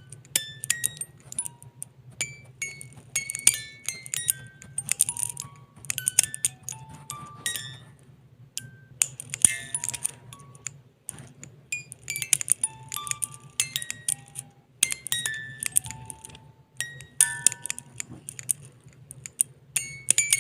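Irregular tinkling of short, bright chime-like notes at many different pitches, several a second with brief pauses, over a steady low hum.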